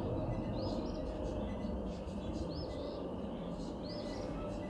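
A songbird repeating a short, high two-part call three times, about every one and a half to two seconds, over a steady low rumble.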